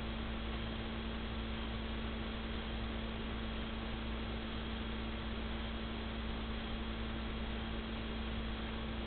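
Steady electrical hum with a constant hiss, unchanging throughout, with no other sound.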